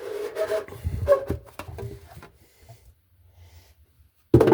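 Cover of a linear actuator being worked off its housing: scraping, rubbing and a run of small clicks and knocks for about two seconds, then quieter handling, with a sudden loud sound near the end.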